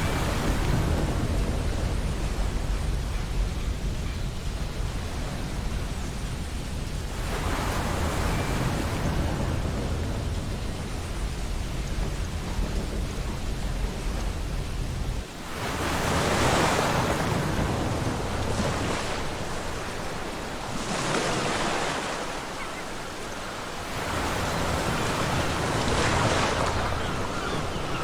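Ocean surf washing onto a beach, swelling in several surges a few seconds apart, over a low wind rumble that drops out suddenly about halfway through and comes back later.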